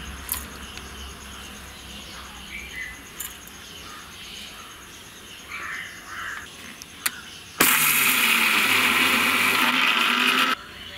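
Electric mixer grinder running in one burst of about three seconds, starting and stopping abruptly, as it coarsely grinds soaked raw rice, toor dal and urad dal into vada batter. Before it, a few light clicks.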